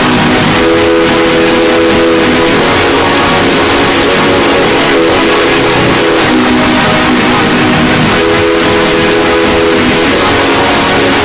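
Electronic 'earrape' sound played at extreme, clipped loudness: a harsh, distorted wall of noise with a repeating chord-like tone that sounds in blocks of about two seconds.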